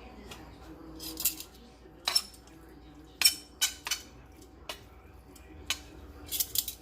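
Metal eating utensil clinking and scraping against a plate, in irregular sharp clinks with a quick cluster near the end, as noodles are picked up and eaten.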